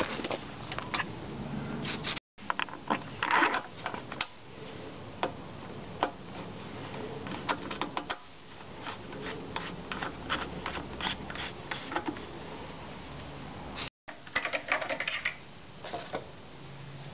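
Scattered clicks, taps and light plastic knocks from hands working around a lawn mower's plastic-shrouded Briggs & Stratton engine and an orange plastic funnel in its oil filler, in several short bursts broken off by abrupt cuts.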